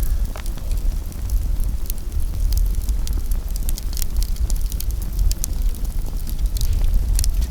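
Wood campfire crackling, with many sharp irregular pops and snaps over a steady low rumble.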